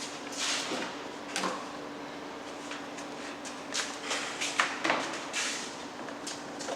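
Pipe and elbow fittings being handled and set up: a scatter of short scrapes and light knocks, over a steady hum.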